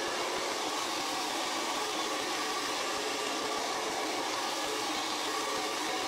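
Rusk Super Freak hair dryer with a concentrator nozzle running steadily on its hottest setting and highest speed, rough-drying damp hair.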